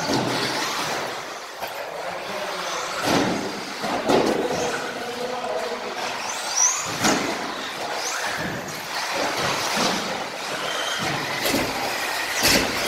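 Radio-controlled off-road model cars running on an indoor track: a steady run of motor and tyre noise with brief high whines rising in pitch, and several sharp knocks from the cars hitting the track and its borders.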